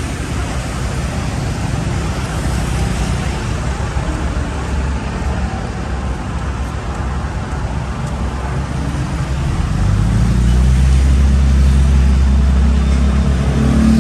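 Street traffic noise, with a vehicle engine running close by from about ten seconds in, adding a loud low rumble.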